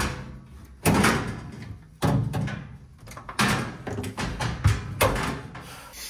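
Top-loading washer lid being worked loose for removal: a run of sudden knocks and rattles, about one a second, each dying away quickly.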